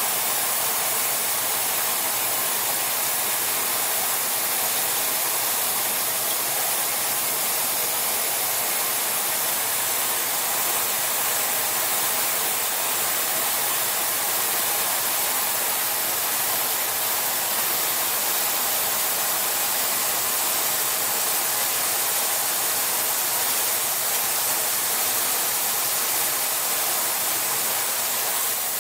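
Thermal metal-spray gun running, a steady loud hiss of compressed air and spray, as metal is sprayed onto a screw compressor's worn shaft to build it back up.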